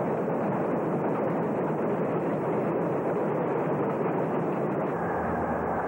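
Freight train rolling past: a steady noisy rush of the cars on the rails. About five seconds in, a low steady drone joins it.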